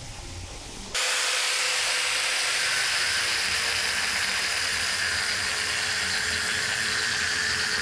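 Angle grinder with a cut-off disc cutting through the exhaust manifold to remove its catalytic converter. The cutting starts abruptly about a second in and holds steady, a harsh grinding with one constant whine.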